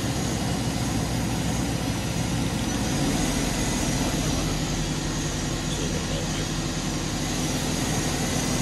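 Daewoo Lynx 200B CNC turning center running under power: a steady machine hum with faint high whines.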